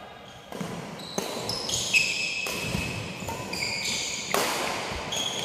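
Badminton rally on a wooden indoor court: about five sharp smacks of racket strings on the shuttlecock, the loudest about two seconds in, each echoing in the hall. Between the hits, court shoes squeak on the wooden floor.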